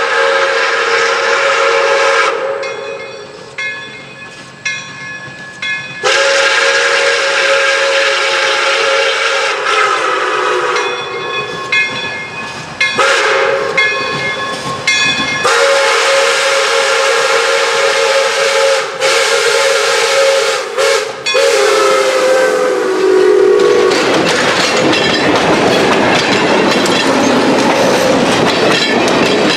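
Pere Marquette 1225, a 2-8-4 Berkshire steam locomotive, blowing its steam whistle in several long blasts as it approaches. The whistle's pitch drops as the engine passes, about three quarters of the way through. Its passenger coaches then roll by in a steady rumble with the clickety-clack of wheels over rail joints.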